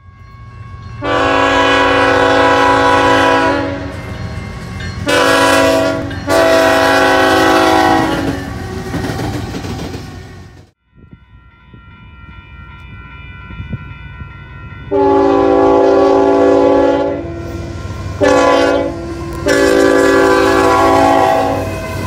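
Freight locomotive air horn, a five-chime horn labeled a Nathan Airchime K5HL, though the labels may be wrong. It sounds two crossing sequences, each a long blast, a short blast and a long blast, with a short break near the middle. Under the horn runs a low locomotive rumble, and thin steady tones, likely the crossing signal's bell, are heard between blasts.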